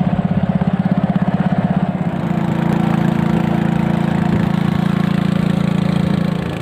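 Small boat engine running steadily as the boat travels across the water, a loud low drone that pulses at first and evens out about two seconds in, with water rushing and splashing along the hull.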